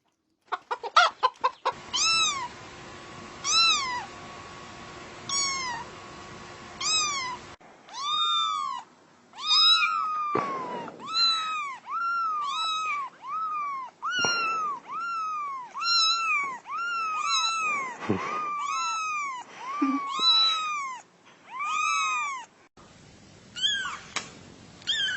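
Cat mewing over and over: short, high calls that rise and fall, coming about once or twice a second.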